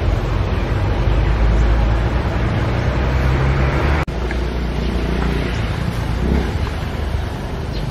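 Wind buffeting an outdoor microphone: a steady rushing noise with a heavy low rumble, broken by a brief drop-out about four seconds in.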